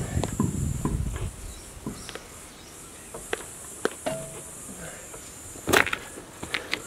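Scattered clicks and knocks of a car's road wheel being refitted by hand, its wheel nuts going onto the studs, with one louder knock near the end.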